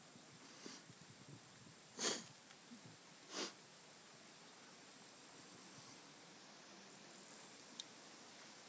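Faint, steady, high-pitched chorus of rainforest insects, with two short breathy puffs of noise about a second apart, around two seconds in.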